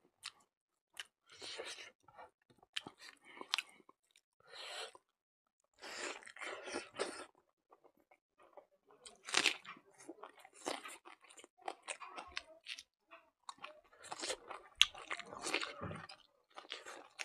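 A person chewing mouthfuls of buffalo innards curry with rice and greens: crunchy chewing in irregular bouts, with short pauses between mouthfuls.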